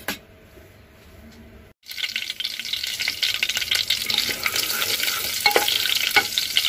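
Curry leaves and whole spices frying in hot oil in a pressure cooker, stirred with a wooden spatula. It is quiet at first, then from about two seconds in there is a dense crackling sizzle, with a couple of sharper knocks late on.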